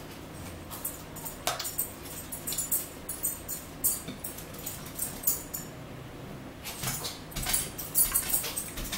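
Eating noises close to the microphone: chewing and lip-smacking, heard as a string of short, irregular wet clicks, with a denser cluster near the end.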